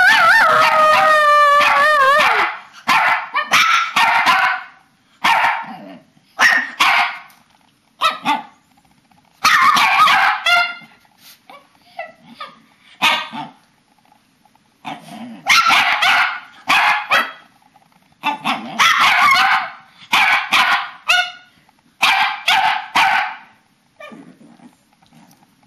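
Small dogs, papillons and a shih tzu, vocalising to one another: a wavering, pitched howl that ends about two seconds in, then a long string of short barks and yips, a burst every second or two, stopping shortly before the end.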